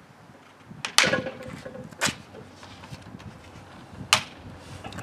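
Side cutters snipping the excess tails off nylon cable ties: three sharp snips, about a second in, at two seconds and just after four seconds.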